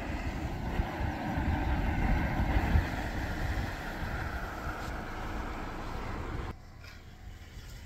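A car passing on a tarmac road, heard as a steady rushing noise over a low, uneven rumble. The noise drops off suddenly near the end.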